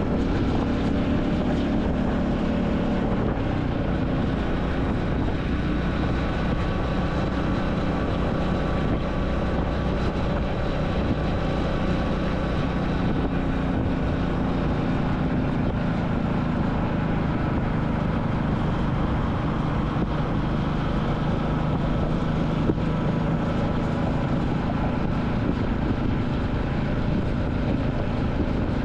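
Royal Enfield Classic 350's single-cylinder engine running steadily while the motorcycle cruises, heard from the rider's position along with wind and road noise.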